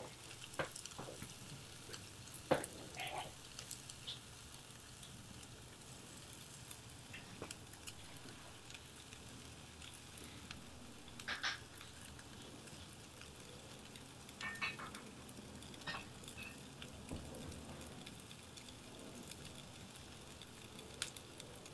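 Faint steady sizzling of a New York strip steak and a pork chop on a charcoal grill grate, with many small crackles and a few sharper pops.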